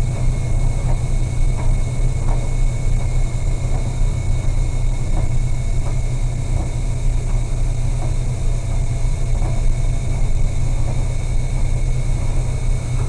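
Steady low rumble of a ship's engines and machinery, with a thin constant whine over it and a few faint knocks.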